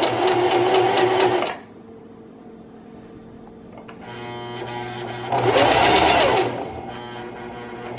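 Domestic electric sewing machine stitching, its motor and needle running with a rapid even clatter. It stops about a second and a half in, runs again more quietly from about four seconds, and near the middle speeds up and slows back down as the pedal is worked.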